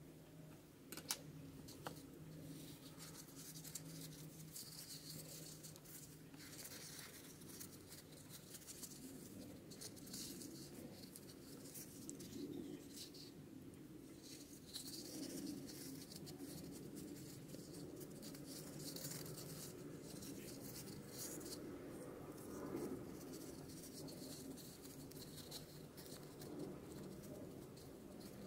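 Faint rustling and rubbing of felt fabric being handled and smoothed over a foam ball, with a sharp click about a second in.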